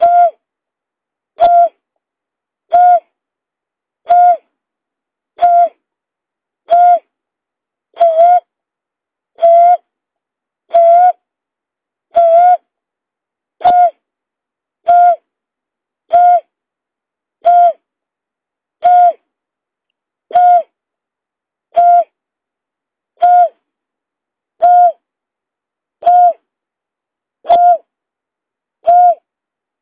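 Greater painted-snipe call used as a trapping lure: a short, steady-pitched hoot repeated evenly about every second and a half, over and over like a loop.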